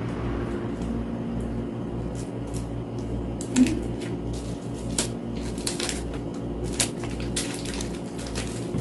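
Kitchen handling noises: scattered light clicks and knocks of utensils and food preparation, with one louder knock about three and a half seconds in, over a steady low hum.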